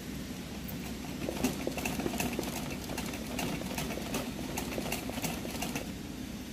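Sewing machine stitching free-hand embroidery: a steady motor hum with irregular needle clicks that stop shortly before the end.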